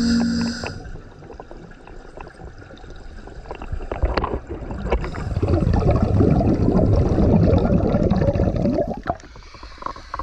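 Underwater bubbling and gurgling of a scuba diver's exhaled air from the regulator, heard through a waterproof camera housing. It is quieter at first, then turns into a long, dense rush of bubbles from about four seconds in until about nine seconds in.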